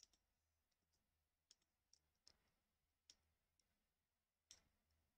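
Near silence broken by about half a dozen faint, scattered computer mouse clicks.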